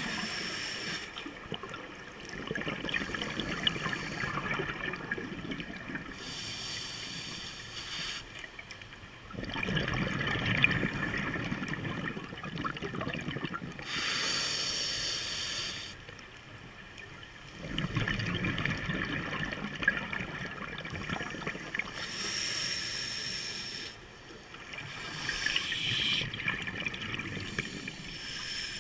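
Scuba diver breathing through a regulator underwater: a short hissing inhale, then a longer rush of bubbling exhaled air. The slow cycle repeats about every eight seconds.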